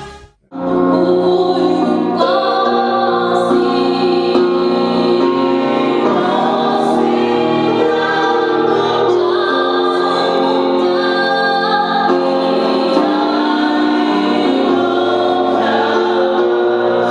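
A choir singing a gospel song, starting about half a second in after a brief silent break.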